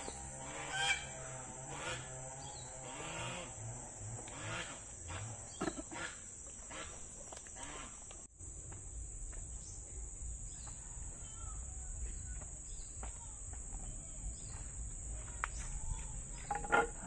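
Chickens clucking in short calls scattered through, loudest about a second in and near the end.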